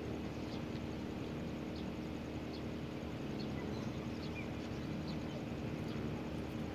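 Outdoor background: a steady low hum, with faint, scattered short high chirps from birds or insects.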